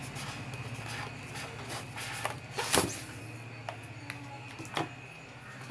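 Handling of a plastic RC car remote control as it is lifted out of polystyrene packing and set down on a table: a few light knocks and scrapes, the loudest about three seconds in, over a steady low hum.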